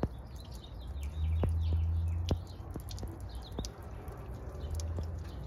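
Liquid leaking from a small hole in a car's gas tank and dripping onto a steel diamond-plate deck, in scattered sharp drips. Birds chirp in the background, and a low hum comes and goes.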